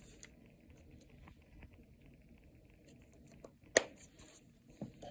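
Mostly quiet, with a few faint taps and one sharp click nearly four seconds in: small clatter from handling the slime bowl, utensil and activator bottle while more activator goes in.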